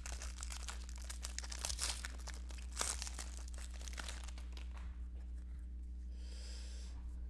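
Foil wrapper of a Donruss basketball card pack crinkling and crackling as it is torn and peeled open by hand. The crackle dies down after about four and a half seconds, giving way to a softer sliding of cards being fanned out near the end.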